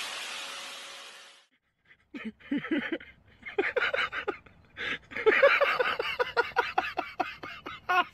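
A steady hiss with a steady hum fades and cuts off about a second and a half in; then, after a short pause, a person laughs hard in quick repeated bursts, several a second, going on to the end.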